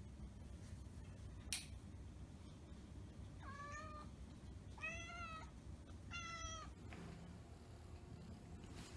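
A 9-month-old domestic long-haired cat meows three times, short calls a little over a second apart, starting about three and a half seconds in. A single sharp click comes about a second and a half in.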